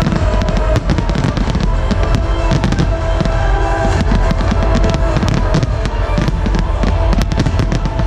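Dense barrage of aerial firework shells bursting in rapid succession, a near-continuous run of bangs and crackling, with music playing underneath.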